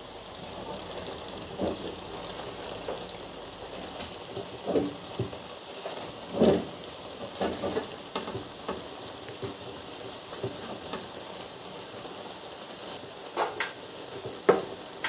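Steady sizzling hiss of chicken cooking down in a nearly dry pot, with soft scattered knocks and taps as cooked rice is spooned in layers over it; the loudest knock comes about six and a half seconds in.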